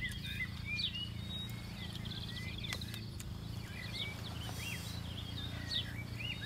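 Small birds chirping over and over in short rising and falling calls, over a steady low hum.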